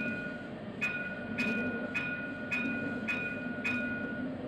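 Tram running along street track, heard from the driver's cab as a steady low rumble. Over it, a sharp click with a short high ding repeats about twice a second, together with a steady high tone that stops shortly before the end.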